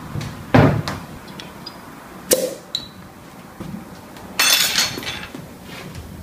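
Glass bottle and drinking glass handled on a desk: a dull knock, then a sharp clink, then a brief rushing noise.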